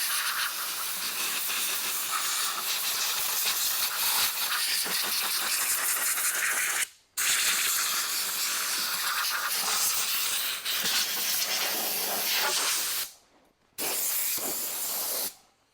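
Compressed air hissing from a shop air-hose blow gun in three long blasts, cutting off briefly about seven seconds in and again about thirteen seconds in.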